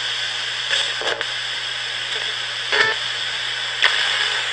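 RadioShack 20-125 portable radio modified as a spirit box, sweeping through stations: steady static hiss broken four times by brief clipped snippets of broadcast sound. The operator reads such fragments as spirit words.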